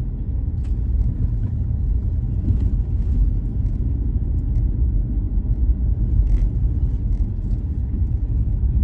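Car interior road noise while driving: a steady low rumble of tyres and engine, with a few faint light clicks or rattles.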